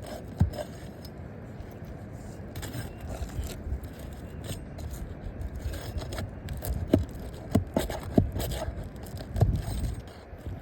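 Roof shingles being pried and worked loose against their nails: continuous scraping and rustling, with sharp knocks about half a second in and several more near the end.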